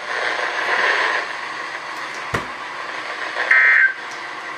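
NOAA Weather Radio broadcast coming through a weather radio receiver: radio hiss, one sharp click about halfway, then near the end a short raspy digital data burst. That burst is the first of the SAME end-of-message codes that close the weekly tone alarm test.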